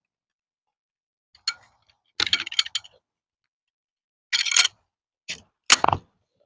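Crossbow being handled between shots: five short bursts of rapid mechanical clicks and clinks.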